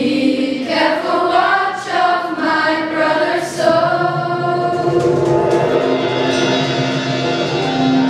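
A group of young teenage voices singing together as a choir. About halfway through, the singing settles into long held notes.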